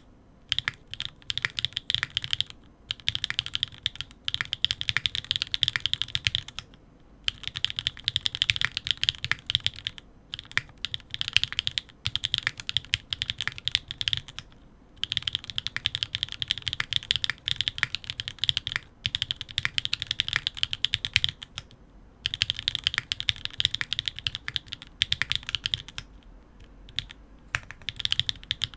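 Fast typing on a Sangeo65 custom mechanical keyboard with Gateron RAW linear switches, GMK Sloth keycaps and an aluminium plate: rapid keystroke clacks in runs of a few seconds, broken by short pauses.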